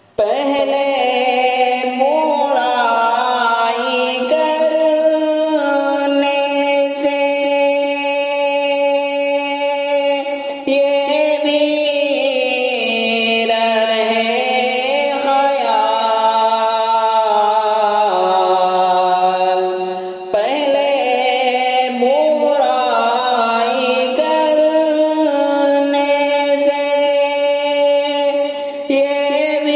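Islamic devotional vocal music (a hamd): a voice singing long, drawn-out melodic lines, with a brief dip in level about twenty seconds in.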